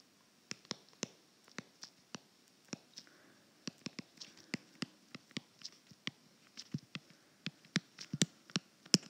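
Stylus tapping and scraping on a tablet's glass screen during handwriting: irregular short clicks, several a second, growing more frequent near the end.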